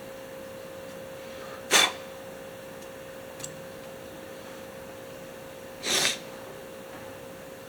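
A steady hum, with two brief sharp noises about four seconds apart, the second a little longer, and a faint tick between them.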